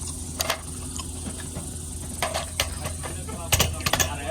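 A few short, sharp clicks and knocks, bunched together near the end, over a steady low hum.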